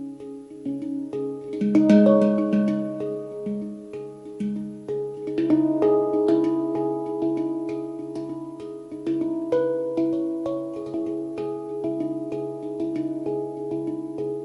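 Handpan played with the fingers: a flowing melody of struck steel notes that ring on and overlap, over a steady low tone. It is loudest about two seconds in.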